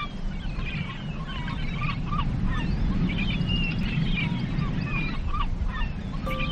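A flock of birds calling in many short, overlapping squawks over a steady low rumble.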